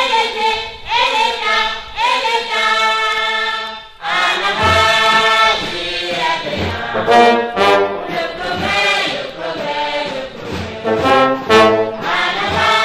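Background music: voices singing together over brass, with a low drumbeat under them after a short break about four seconds in.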